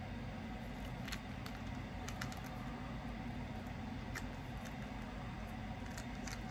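Steady low background hum, with a few faint light clicks and taps as small objects are handled.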